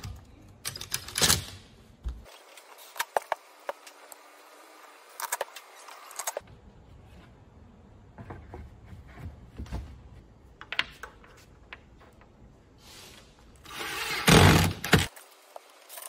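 Wooden cabinet frame pieces and a particleboard panel being handled and set in place, with scattered knocks and clicks and a louder burst of about a second near the end.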